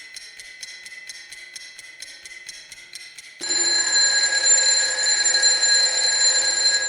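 A ringing, alarm-like tone: quick pulses about five times a second over a steady high note, then, about three and a half seconds in, a louder sustained ring of several steady pitches.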